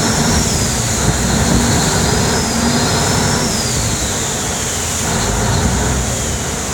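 Bangkok canal taxi boat under way at speed: its engine running hard under a dense rush of water spray and wash along the hull, with a thin high whine that slowly drifts down in pitch.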